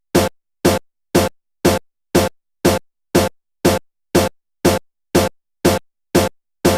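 Background electronic music: a short, punchy hit repeating evenly about twice a second, with silence between the hits.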